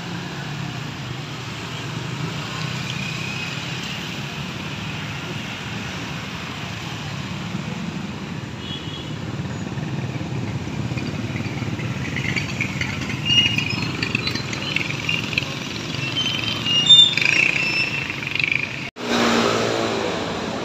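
Street traffic noise, mostly motorcycles and cars passing with a steady engine rumble. Short high-pitched chirps sound now and then through the second half. Near the end the sound cuts out briefly and comes back changed.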